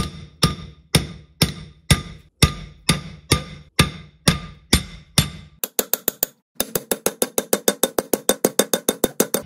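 A 2-pound hammer strikes a steel driver rod and bearing adapter, driving a sealed gimbal bearing into a Mercruiser Alpha One outdrive bell housing. Each blow rings metallically, about two blows a second. After a brief pause just past the middle comes a rapid run of quicker blows, about eight a second.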